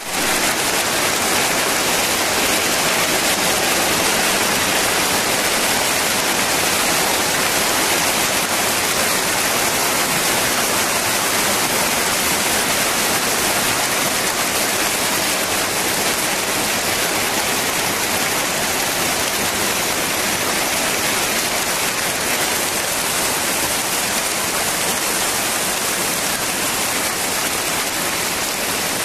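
Hail falling steadily, a dense, even hiss of hailstones striking the ground and foliage.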